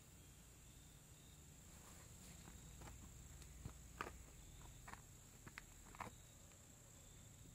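Near silence: faint outdoor ambience with a steady, thin, high-pitched tone and a few soft clicks about halfway through.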